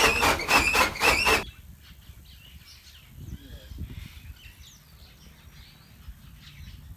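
Fodder chaff cutter running: a fast, even clatter of about four strokes a second with a steady high squeal, cut off abruptly about a second and a half in. After that, faint bird chirps over quiet open air.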